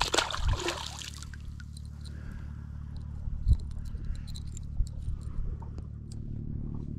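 A small fish dropped back into the sea, splashing at the surface in the first second. Then faint clicks of fishing tackle being handled over a low steady hum.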